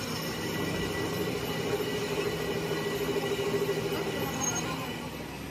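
A metalworking machine tool running steadily with a constant hum. A higher squeal rises over it from about two seconds in and fades near the end.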